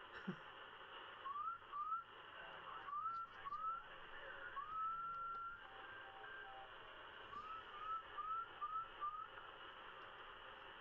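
President George 2 CB radio receiving on lower sideband: steady band hiss with a series of short rising whistle-like tones coming through the speaker, a longer tone that rises and holds in the middle, and a quicker run of five chirps near the end.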